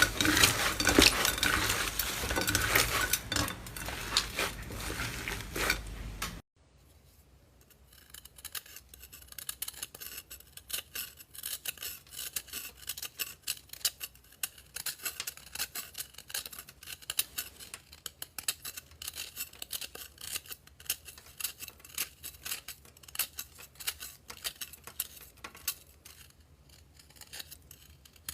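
Slime being worked by hand close to the microphone: a dense stream of sticky crackling, clicking and popping. It is loud for about the first six seconds, cuts off suddenly, then carries on as quieter, sparser crackles.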